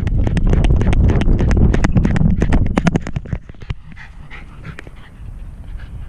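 Rattling and knocking from a GoPro camera on a loose dog harness as a wire-haired fox terrier runs, many sharp clicks over a heavy low rumble, mixed with the dog's panting. A little past halfway it quietens as the dog stops.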